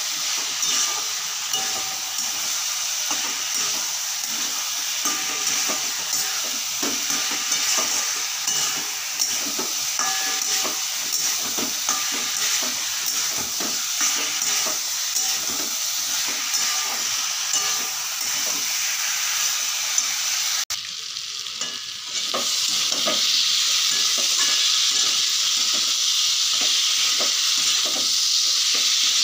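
Pointed gourd and potato pieces sizzling in hot oil and spice paste in a kadai, stirred with a spatula that scrapes and knocks against the pan, as the masala is fried down. The sizzle cuts out for a moment about two-thirds of the way through and comes back louder.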